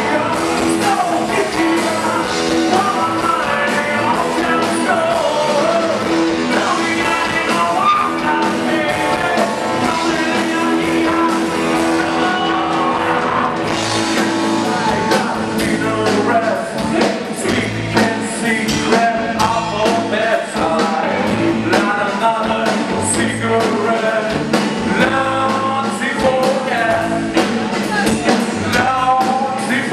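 Live rock band playing through a PA: electric guitar and drums, with a man singing lead.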